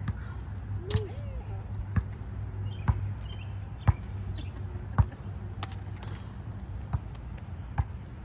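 A ball bouncing on the concrete court, a sharp knock about once a second, over a low steady rumble.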